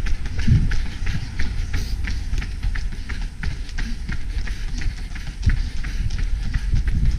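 Running footsteps slapping on an asphalt street in a quick, even rhythm of about three steps a second, over a low rumble.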